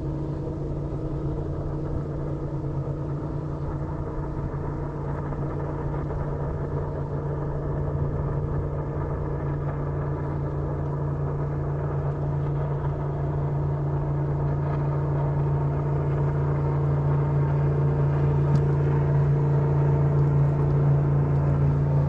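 Motorboat engine running with a steady low hum, growing gradually louder as it comes closer.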